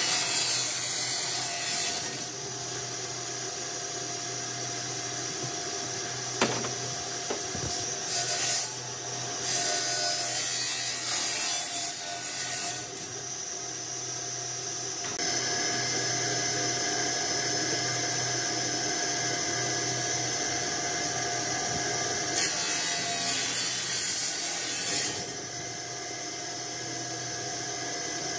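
An electric power tool works wood, its motor running steadily throughout, with four louder stretches where it cuts into the wood.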